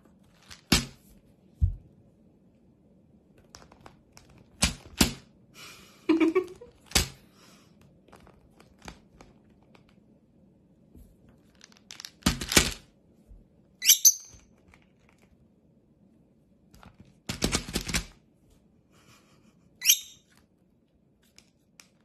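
Scattered short knocks and clattering taps on a plastic bead jar and a wooden table, including a quick run of taps about three-quarters of the way in. A rosy-faced lovebird gives two short, high chirps, one a little past halfway and one near the end.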